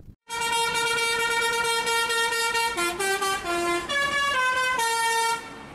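Bus musical air horn (Indonesian 'telolet' horn) playing a tune. One long held note gives way, about halfway through, to a run of shorter notes stepping up and down, and it stops abruptly near the end.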